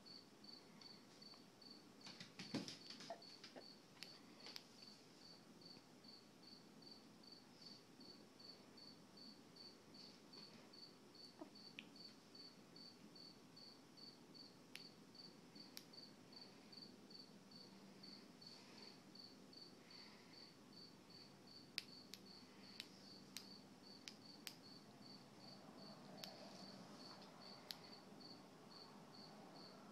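Near silence, with a faint cricket chirping steadily at one high pitch, about two chirps a second. A few light clicks and taps are scattered through.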